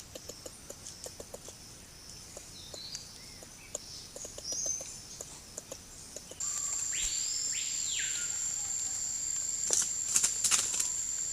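Rainforest ambience: faint ticking and small bird chirps, then from about six seconds in a steady high insect drone, with one bird call that sweeps up and back down, and a few sharp clicks near the end.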